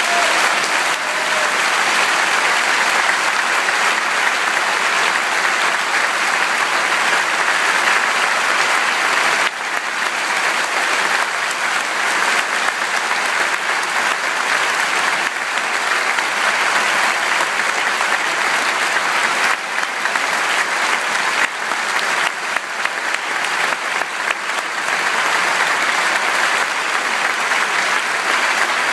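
Large concert audience applauding, a dense steady clapping that holds throughout.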